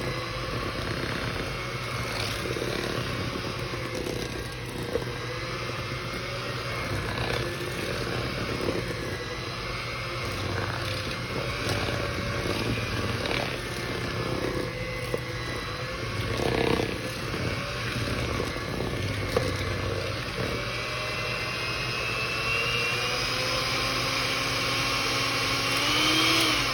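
Electric hand mixer running steadily, its beaters working through thick brownie batter, the motor's pitch wavering with the load and rising near the end.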